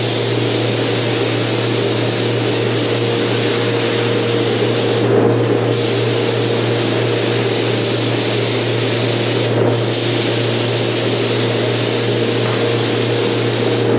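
Gravity-feed paint spray gun hissing steadily as compressed air atomizes the paint, cutting out briefly twice, about five and ten seconds in. A steady low hum runs underneath.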